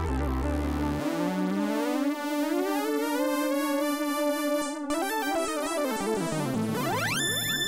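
Nord Wave 2 synthesizer playing a patch with no external effects: pitched notes with a bass part that drops out about a second in, gliding melodic lines in the middle, and a fast rising sweep into high ringing tones near the end.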